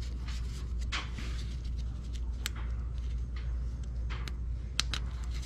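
Small plastic push-pin retainer being handled and worked with the fingers: a few faint, sharp clicks over a steady low hum.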